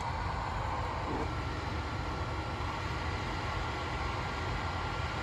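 Airsee GD3 nail dust collector's fan running steadily: a constant whooshing hum, with a faint high whine that comes in about a second in.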